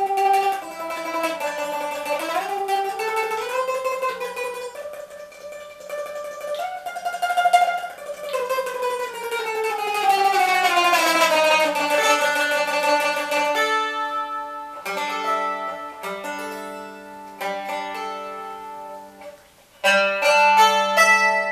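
Bowl-back mandolin with fluted maple ribs played solo: a melody of sustained notes with a long descending run, then repeated chords through the second half, with a short break just before the last chords.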